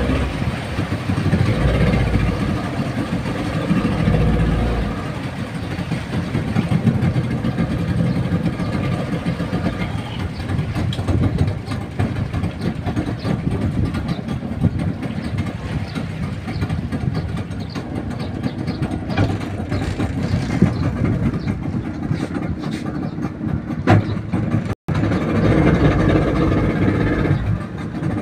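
A small boat's engine running steadily at low speed.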